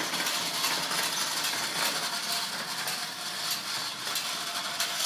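Vintage Louis Marx G-Man Pursuit Car wind-up toy running, its clockwork spring motor and gears whirring with a fine, rapid clatter.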